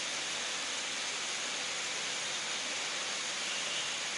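Steady, even hiss of background noise with nothing else standing out: room tone of a quiet pause.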